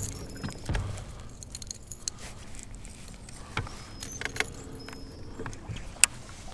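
Scattered light clicks, taps and rattles of a baitcasting rod and reel being handled in a boat, with one sharp click near the end.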